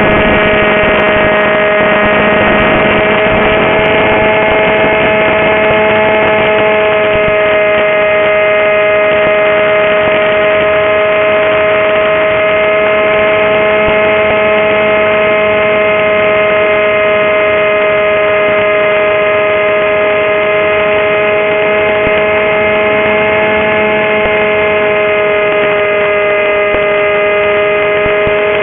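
Electric motor and propeller of a Goblin RC flying wing in flight, heard through its onboard camera: a steady, held whine with several tones over an even hiss. The pitch dips slightly near the end.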